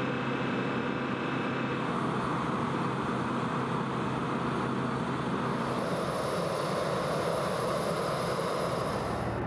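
Jet engines of a large military aircraft running on the ground, a steady dense noise. A thin high-pitched whine comes in about six seconds in.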